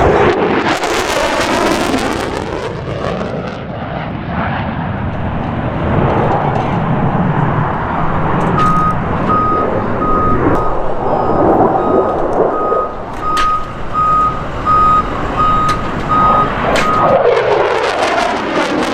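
F-16 fighter jet's engine roar swelling as the jet passes near the start and again near the end, with a whooshing sweep in its pitch as it goes by. From about halfway in, a vehicle's reversing beeper sounds steadily, about one beep a second.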